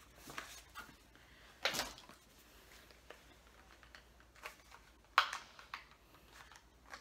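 A small cardboard product box being handled and forced open by hand: a few scattered sharp clicks, a short rustling burst about two seconds in, and a loud sharp snap about five seconds in as the box gives.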